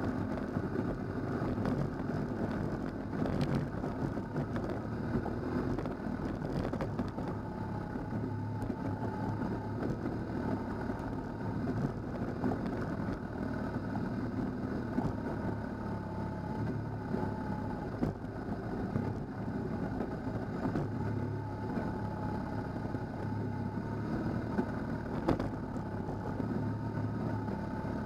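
Motorcycle engine running at a steady, moderate speed while riding a gravel road, with a few brief knocks.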